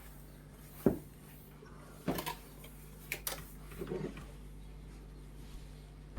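Household kitchen clatter: a sharp knock about a second in, a double knock around two seconds, another pair around three seconds and a softer rattle near four seconds, over a low steady hum.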